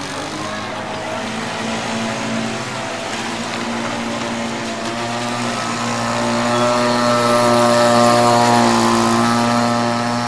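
Radio-controlled model speedboats running at speed on the water, a steady engine drone that swells to its loudest about seven to eight seconds in as a boat passes, then eases off.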